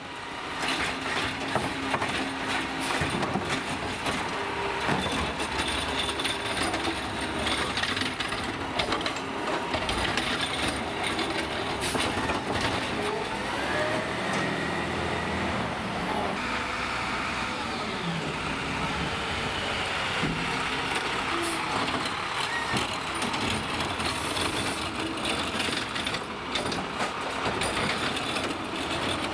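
Peterbilt garbage truck with a McNeilus ZR automated side-loader body running, with its engine and equipment working and air-brake hiss. In the middle, a whine rises and then falls over about three seconds.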